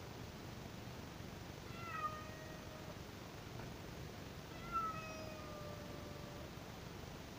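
Calico cat meowing twice: drawn-out calls that dip slightly in pitch and then hold steady, the second, about five seconds in, the longer.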